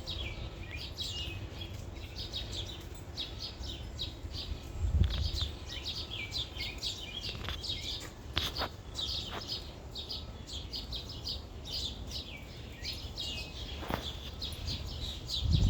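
Wild birds chirping over and over in quick, short, high calls, with a low steady rumble underneath and one dull thump about five seconds in.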